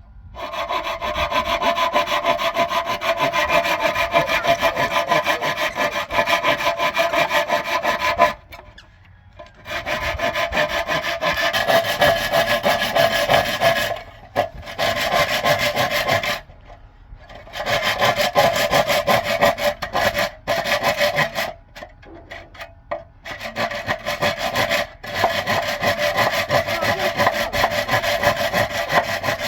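Wood being sawn in long runs of fast, rasping strokes, stopping briefly about five times.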